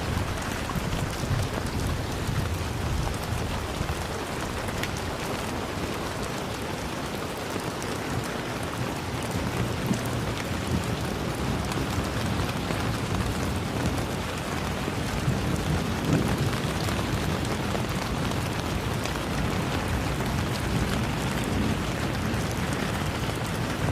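Steady rain falling, with a dense hiss and scattered drop clicks. Distant thunder rumbles low a few times, around the middle and again near the end.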